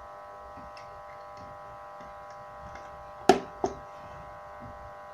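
A knife cutting at the packing tape on a cardboard parcel: two sharp clicks a third of a second apart a little over three seconds in, with a few faint ticks. A steady electrical buzz runs underneath.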